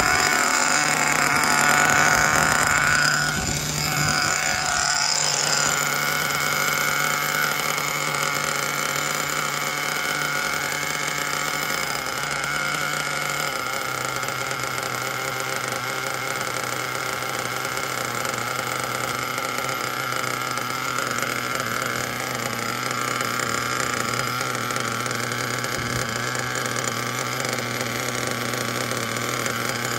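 Small nitro engine of a Kyosho Inferno NEO ST 3.0 RC car idling steadily, its pitch stepping slightly lower about halfway through. A louder, higher engine buzz fades away with a falling pitch in the first few seconds.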